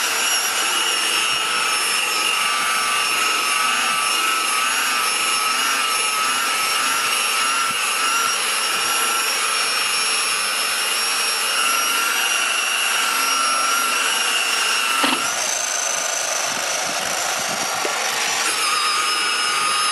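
Electric rotary buffer running against a boat's fiberglass gel coat, buffing off water-sealer overspray that blading and claying left behind. A steady high whine whose pitch steps up about 15 seconds in and drops a little near the end.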